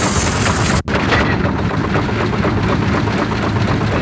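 Steam traction engine running, heard through a badly worn 16mm magnetic film soundtrack: a dense crackle over a steady low rumble, cut by a brief dropout about a second in.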